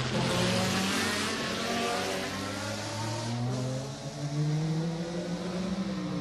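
Group C prototype race car engines running, their pitch sliding down over the first few seconds, then rising again a little after halfway as a car accelerates.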